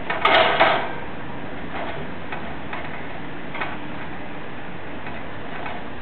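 A lovebird knocking an empty cardboard toilet roll around its wire cage: a burst of rattling and scraping about half a second in, then a few scattered light taps, over a steady hiss.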